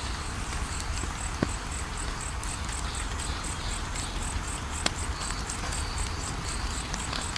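Wood fire in a fireplace crackling, with a low rumble and a few sharp pops, the loudest about a second and a half in and near five seconds in. Over it runs a steady high chirping pulse, about four a second.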